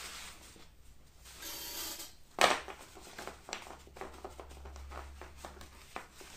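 Stack of cardboard target cards being picked up and handled: a short rustle of card, then one sharp knock about two and a half seconds in, followed by light taps and clicks as the cards are shuffled in the hands.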